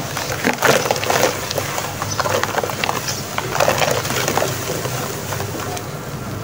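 Soft wet sand-cement chunks crushed and crumbling between the hands and pouring into foamy water: crackling, gritty crunching with small splashes, strongest about a second in and again near four seconds.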